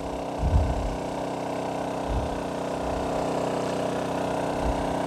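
Honda EU2000 inverter generator running steadily under a load of about 1.4 kW while charging an electric car, with a few soft low bumps.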